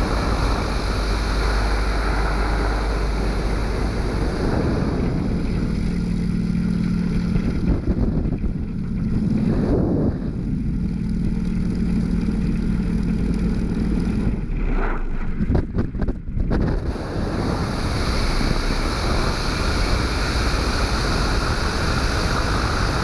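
Aircraft in a flat spin: a steady rush of wind noise with engine sound underneath. A low steady hum comes in about five seconds in and stops about fourteen seconds in, and the sound briefly cuts out a few times about fifteen to sixteen seconds in.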